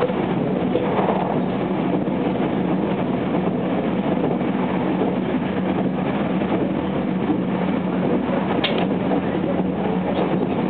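Running sound inside the passenger cabin of a JR West 287 series electric express train at speed: a steady rumble of wheels on rail with a constant low hum. One brief sharp click comes near the end.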